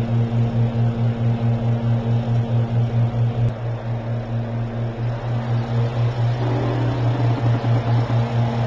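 Stand-up tanning booth running: a steady low hum that pulses about five times a second.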